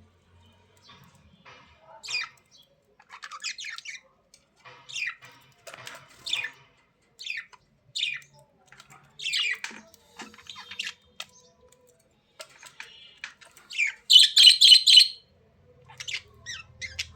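Budgerigars chirping and squawking in a string of short, high calls, with a loud, rapid chattering run about two-thirds of the way through.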